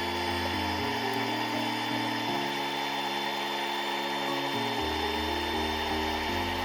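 Background music of slow, held low notes changing every second or so, under a steady machine whir with one constant tone, typical of a small power tool running.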